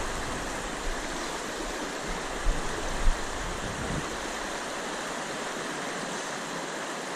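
River water running steadily over a shallow, rocky riffle, with a couple of soft thumps about three seconds in.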